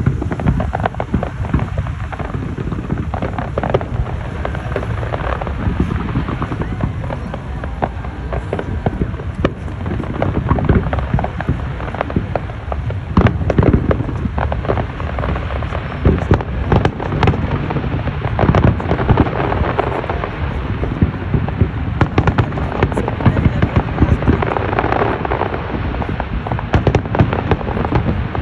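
Fireworks going off: a dense, continuous string of bangs and crackles over a low rumble, with the sharpest bangs in the second half.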